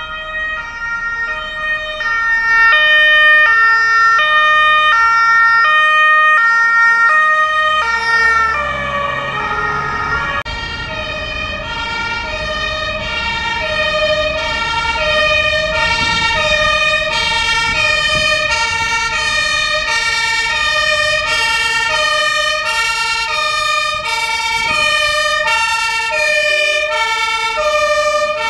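German fire-engine two-tone sirens (Martinshorn) sounding together, with their alternating high and low notes. About nine seconds in, one passing vehicle's tone drops in pitch, and engine and road noise sound beneath it.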